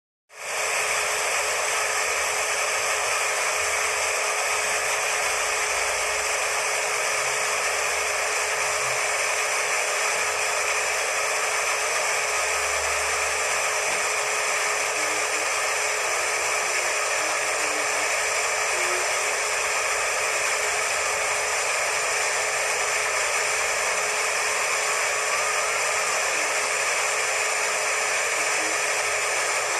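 Hair dryer running continuously at a constant speed: an even rushing noise with a steady motor hum, switching on about half a second in.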